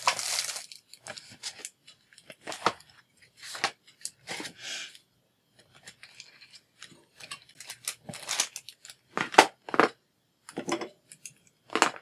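Plastic-packaged craft supplies being handled and set down on a table: a short crinkle of plastic wrapping at the start, then about ten separate light taps and clatters as a ruler, highlighters and pens are laid out one by one.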